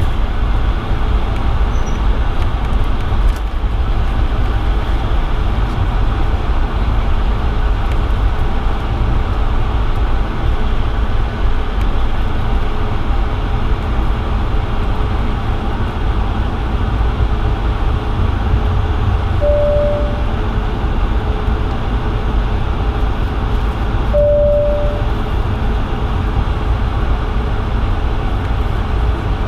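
Steady cabin rumble of a Bombardier CS100 (Airbus A220-100) with its Pratt & Whitney PW1500G geared turbofans running, heard from a seat near the front. Two short, even tones sound about five seconds apart near the end.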